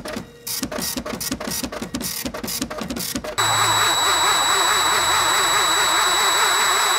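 A glitchy electronic logo sting: rapid stuttering bursts of noise. About three seconds in it cuts suddenly to a cordless drill running steadily at constant speed with a high whine.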